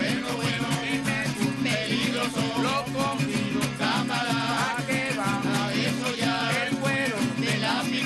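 Men's voices singing a folk song together, accompanied by a strummed guitar and small Venezuelan cuatros in a steady rhythm.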